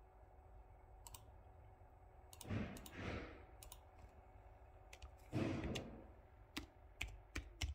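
Scattered single clicks of a Panasonic Toughbook CF-31 laptop's keys and touchpad buttons, a few grouped near the end. Two short, soft rushes of noise, the loudest sounds, come about two and a half and five and a half seconds in.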